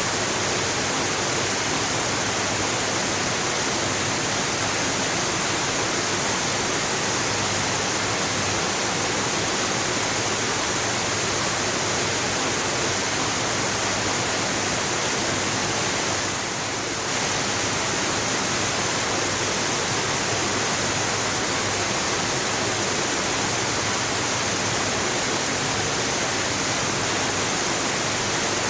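Waterfall rushing, a steady dense roar of falling water that dips slightly for a moment a little past halfway.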